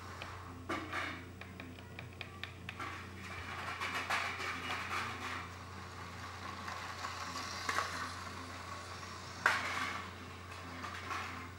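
Lego train running on plastic track: a steady low motor hum under light clicking and rattling, with one sharp knock about nine and a half seconds in.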